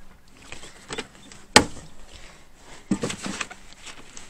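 Plastic trim removal tool prying at a car's interior sill trim, its clips snapping loose. There is a sharp crack about one and a half seconds in, then a quick run of clicks and knocks about three seconds in.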